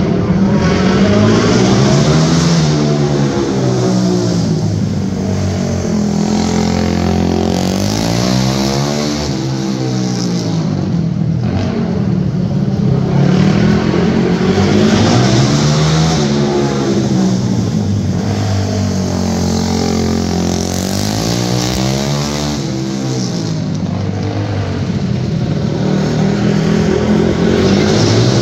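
Race motorcycles lapping an indoor dirt flat track. The engines rev up on the straights and back off into the turns, so the pitch rises and falls about every six seconds.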